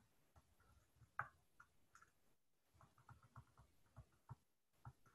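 Near silence broken by about eight faint, scattered taps and clicks, the loudest about a second in: a stylus tapping on a tablet screen while handwriting digital ink.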